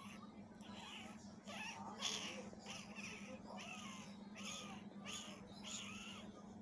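A cat mewing over and over, a quick run of short calls about two a second, over a faint steady hum.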